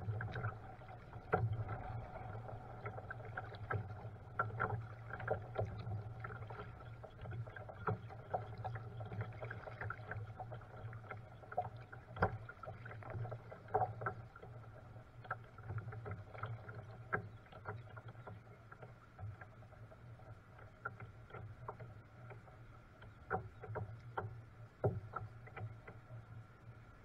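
Kayak being paddled on a river: water splashing and dripping with irregular small clicks and knocks, over a steady low hum.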